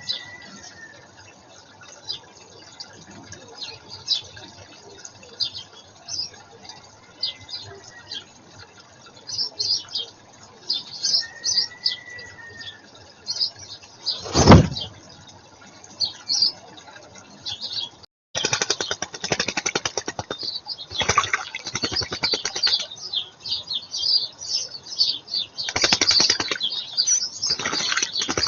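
Small garden birds chirping, with short high calls scattered throughout. There is one sudden loud sound about halfway. After an abrupt cut comes a louder, busier stretch of rapid rustling with more chirps.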